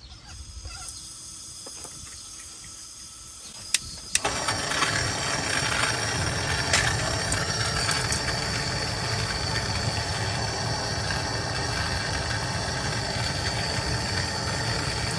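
A handheld MAPP gas torch is lit with a sharp click about four seconds in, then its flame runs with a loud, steady hiss as it heats a seized oxygen sensor in the exhaust pipe.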